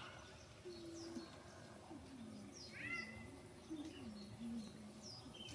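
Small birds chirping faintly in a few short, quick downward-sweeping calls, over low, soft wavering sounds.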